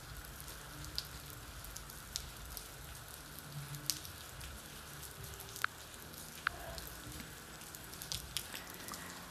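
Faint steady background hiss with scattered small sharp clicks.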